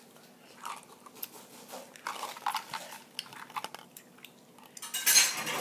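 Jelly beans being chewed close to the microphone, with small wet mouth clicks scattered throughout. A louder burst of hiss-like noise comes near the end.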